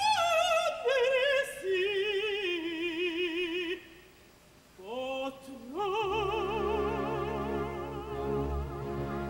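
Mezzo-soprano singing opera with a strong vibrato: a phrase stepping down in pitch, a brief pause about four seconds in, then a rising slide into a long held note over low, sustained orchestra.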